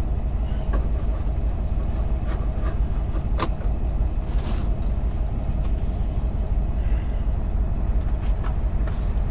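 Semi truck's diesel engine idling steadily, with a sharp click and a brief rustle over it.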